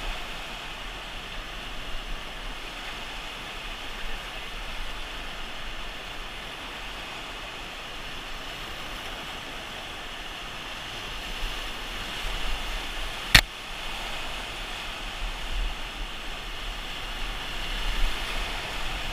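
Rushing river rapids: a steady hiss of whitewater around an inflatable raft, growing louder near the end as the raft enters the rapid. A single sharp knock about thirteen seconds in.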